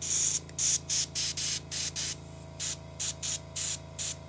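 Airbrush giving short test sprays of diluted white paint: a dozen or so quick hisses, two or three a second, with a brief pause about halfway. Underneath, the air compressor hums steadily.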